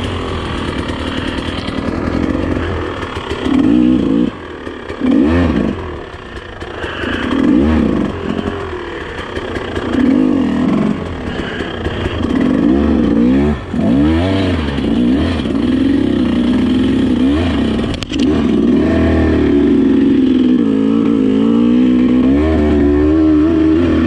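KTM enduro dirt bike engine revving in repeated short surges, its pitch rising and falling every second or two as the bike chugs up over rocks on a steep climb, then held at steadier, higher revs for the last few seconds. A sharp knock sounds about two-thirds of the way through.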